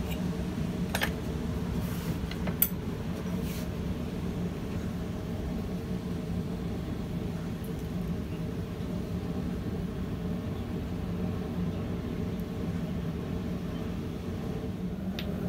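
Steady low mechanical hum, with a few light clicks in the first few seconds.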